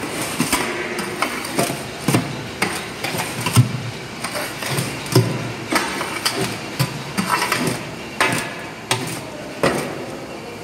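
Concrete block making machine at work: a steady machine noise under a series of irregular metallic knocks and clanks, one or two a second.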